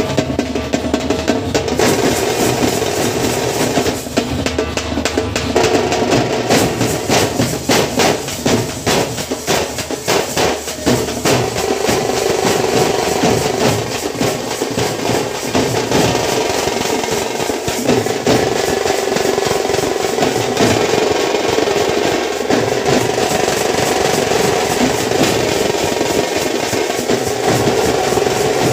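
A street drum troupe playing a dense, fast rhythm with sticks on shoulder-slung double-headed drums, backed by large bass drums.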